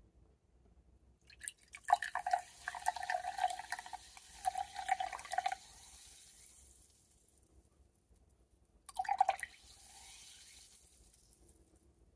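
Carbonated soda water poured from a plastic PET bottle into a drinking glass, glugging from the bottle neck for about four seconds, then a fizzing hiss that fades as the bubbles settle. A second short pour comes about nine seconds in, followed by more fading fizz.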